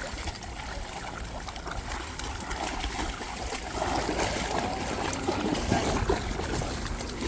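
Water splashing and trickling at the edge of a high tide, over a steady low rumble.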